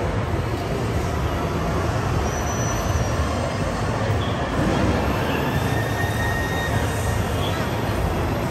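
Steady din of a busy indoor amusement hall: a continuous low rumble under a wash of crowd noise, with a faint high squeal in the middle.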